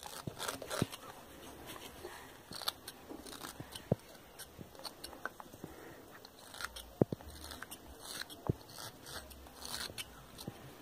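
Small knife blade cutting and scraping into the wooden body of a hand-made ground-dove call, carving the whistle's door opening: faint irregular scrapes and small sharp clicks of wood being cut.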